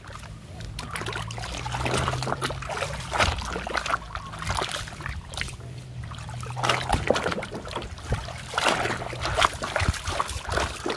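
Muddy water sloshing and splashing in a plastic basin as a hand rubs and swishes a toy dump truck under the surface, in irregular bursts.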